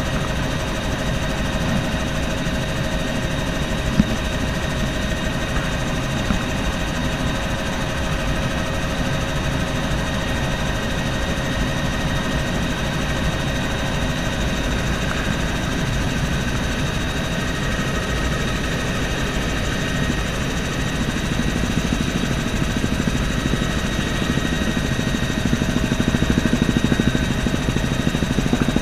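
Bell helicopter's engine and rotor heard from inside the cabin in level flight: a steady drone with constant whining tones, growing a little louder near the end.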